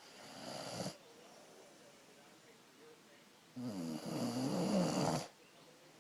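Snoring. A breath sound swells over the first second; after a pause of about three seconds comes a louder snore with a wavering pitch, lasting about a second and a half.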